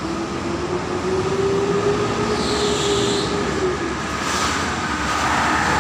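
Steady highway traffic noise of tyres and engines. A vehicle's engine note rises slightly and then fades away about four seconds in.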